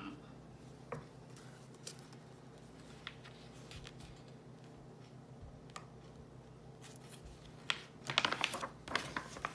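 A few faint clicks and rustles of hands and a plush puppet against the pages of a picture book, then a short cluster of paper rustling near the end as a page is turned.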